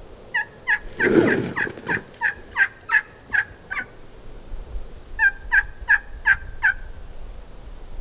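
Two runs of turkey hen yelps, about three evenly spaced notes a second. A Merriam's gobbler's gobble breaks in about a second in.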